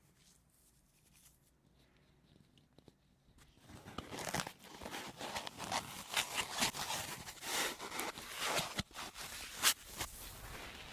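Sponge handled close to the microphone, making dense crunching, crackling scratchy sounds that start suddenly after a few quiet seconds.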